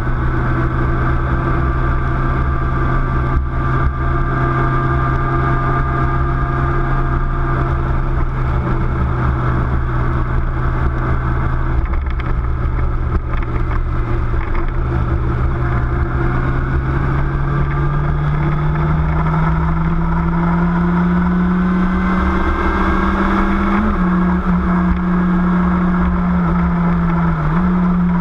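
Car engine droning steadily inside the cabin over low road rumble while driving. About halfway through, the engine note climbs gradually in pitch as the car speeds up, then holds at the higher pitch.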